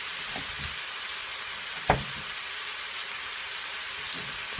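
Chicken and vegetables sizzling steadily in a hot pan, with a few soft knocks and one sharp knock about two seconds in.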